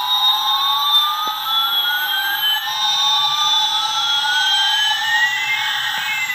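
Toy airliner's electronic jet sound effect from its built-in speaker: a rising whine and a falling whine sweep together over about three seconds, then start again, over a steady tone.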